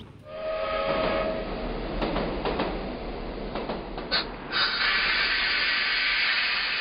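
Moving train. A short steady horn note sounds near the start, then wheels click over rail joints. From about four and a half seconds in, a louder steady rush of wheels on the rails takes over.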